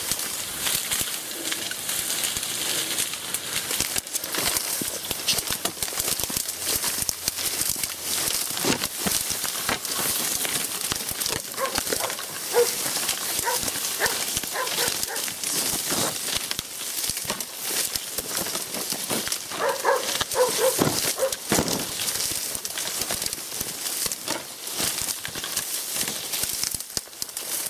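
Dry reeds rustling and crackling as someone pushes through a reed bed. A dog barks a few times about twelve seconds in and again more strongly around twenty seconds in: a tracking dog baying at a wounded wild boar.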